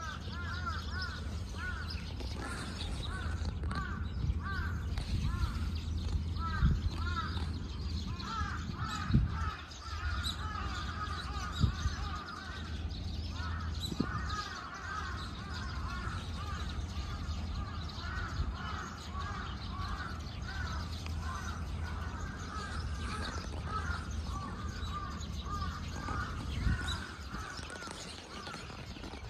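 A flock of birds calling continuously, a dense chatter of short, arching calls, over a steady low rumble. A few sharp knocks stand out about a third and halfway through.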